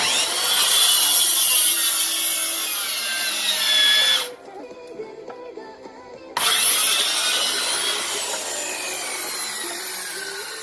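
A power saw cutting through firewood branches in two cuts. The first runs about four seconds and stops abruptly. After a two-second pause the second starts sharply and slowly fades, its pitch dropping as the blade bites into the wood.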